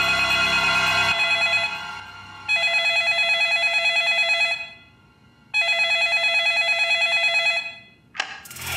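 Corded landline telephone ringing with an electronic warbling ring, in bursts of about two seconds separated by about a second of silence. Near the end, the handset gives a sharp click as it is picked up.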